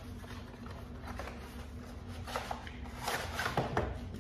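Handling noises: a few short rustles and scrapes of objects being picked up and moved, over a steady low hum.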